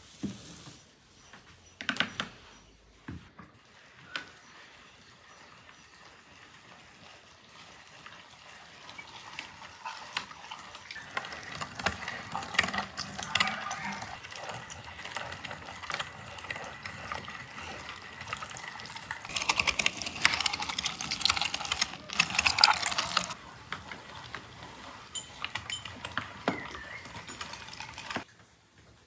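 Hand-cranked meat grinder mincing raw meat and onion: a dense wet crackling as the meat is forced through the cutting plate, with a few sharp clicks in the first seconds. It grows louder through the middle and stops suddenly near the end.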